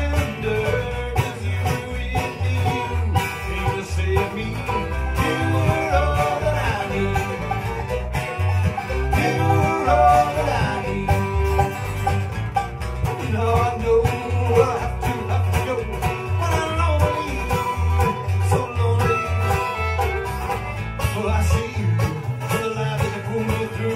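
Live bluegrass band playing a song: strummed acoustic guitars, banjo and fiddle, with men singing into the microphones.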